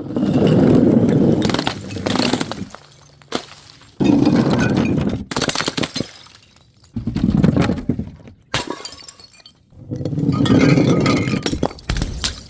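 Glass bottles smashing one after another, a break roughly every three seconds. Each starts with a loud crash, followed by the crackle and tinkle of shards scattering, with sharp glass clinks in between.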